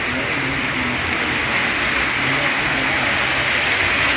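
Heavy rain pouring onto a flooded road, a steady hiss. A car's tyres swish through the standing water, the sound growing a little louder near the end.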